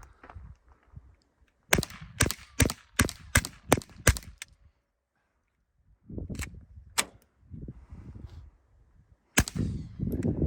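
Suppressed Glock G44 .22 LR pistol firing Winchester Super Suppressed subsonic rounds through a Little Spoon silencer: a quick string of about seven sharp, quiet cracks, then after a pause a few more single shots spaced a second or more apart.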